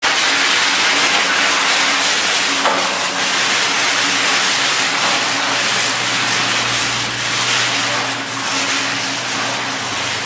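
Steady loud rushing hiss with a faint low hum underneath, without clear footfalls or other distinct events.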